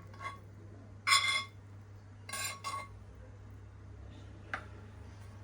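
Dishes clinking: a short ringing clink about a second in, two more close together about two and a half seconds in, and a sharp tick near the end.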